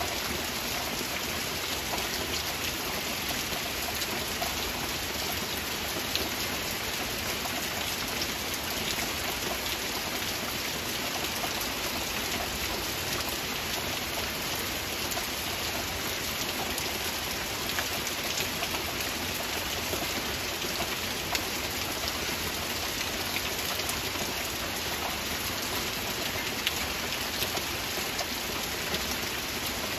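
Steady rain falling: an even, unbroken hiss with many small drop ticks scattered through it.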